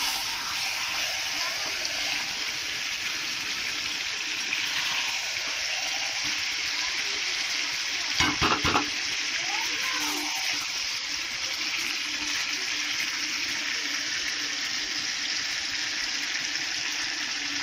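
Chicken and potato curry sizzling steadily in oil in a kadai while the masala is dry-fried, the meat's juices cooked off and the oil separating. A metal spatula scrapes and knocks against the pan in a short cluster about eight seconds in.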